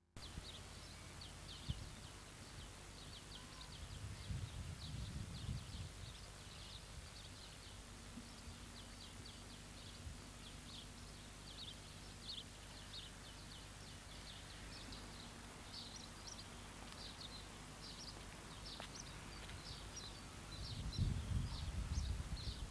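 Small birds chirping over a steady hiss, with a low rumble around four to six seconds in and again near the end.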